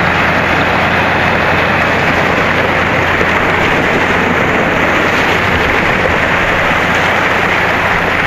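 Passing canal tugboat's diesel engine droning steadily under a loud, even rushing of water and wash.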